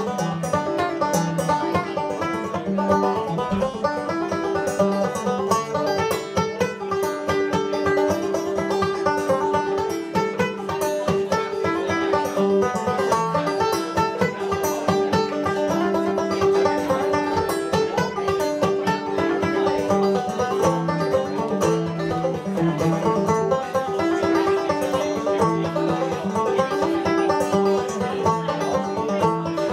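Solo banjo played clawhammer style: a Scottish tune picked as a quick, unbroken stream of notes over a steady ringing drone.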